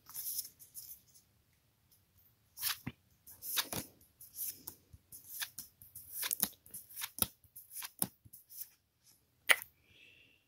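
Pokémon trading cards being flipped through one at a time, the cards sliding and flicking against each other in short, crisp snaps, with a pause of about a second and a half near the start.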